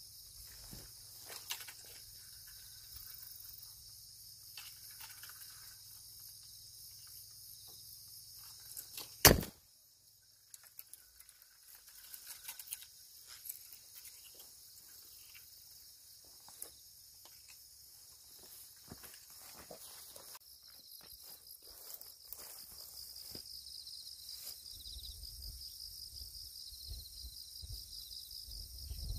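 Insects chirring steadily and high-pitched, louder and pulsing in the second half, with scattered light rustles and steps in grass. One sharp knock about nine seconds in.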